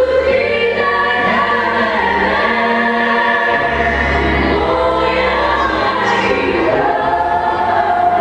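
Folk vocal ensemble singing together in harmony into microphones, the voices held and wavering, over a bass line that moves in long, steady low notes.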